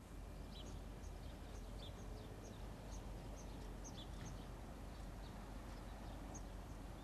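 Small birds chirping in short, repeated high notes, thickest in the first half, over a steady low rumble.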